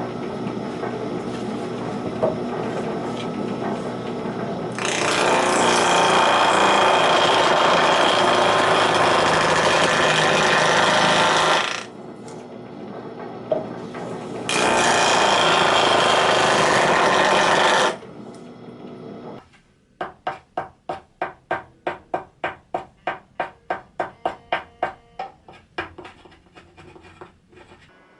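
Hand tools working a block of mountain cherry wood: two long stretches of loud, steady rasping noise, then a run of quick, even strokes about three a second near the end.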